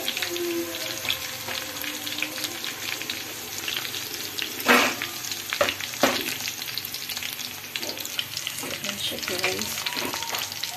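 Chicken pieces sizzling and crackling in hot mustard oil in a pan, with two louder knocks about halfway through as a fork lifts pieces out of the pan.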